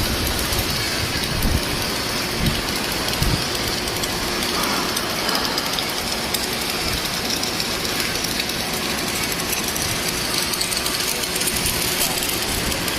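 Submerged arc welding with a column-and-boom welding machine: a steady, even hiss with fine crackle throughout. There are a few low thumps in the first few seconds.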